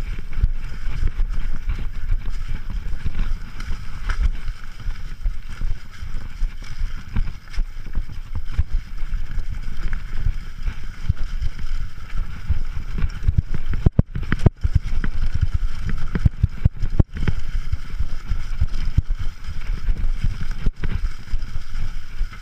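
Mountain bike riding fast over a leaf-covered, rocky dirt trail: wind rumbling on the camera microphone, with the bike knocking and rattling over roots and rocks.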